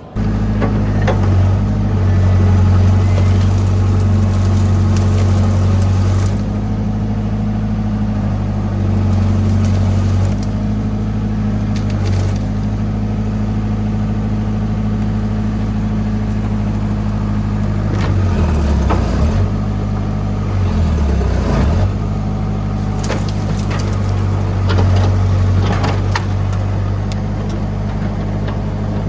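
Hitachi EX60 mini excavator's diesel engine running steadily at working revs. Its note dips twice, about two-thirds of the way through, as the engine lugs under hydraulic load.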